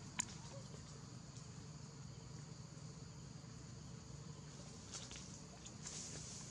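Faint, steady high-pitched insect chorus, with one sharp click just after the start.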